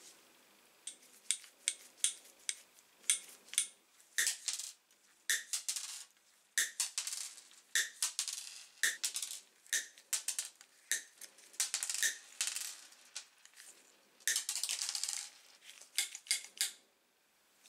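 Unior 200 end-cutting pincers snipping a copper wire into short pieces: a long, irregular series of sharp metallic snips, some followed by the cut bits rattling onto the wooden tabletop. The snips stop near the end.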